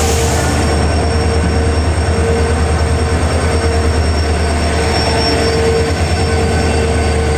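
WDP4D diesel-electric locomotive, with its two-stroke 16-cylinder EMD engine, rolling slowly past alongside the platform as it pulls in. The engine gives a steady pulsing rumble with a steady whine over it, and a thin high squeal comes in around the middle.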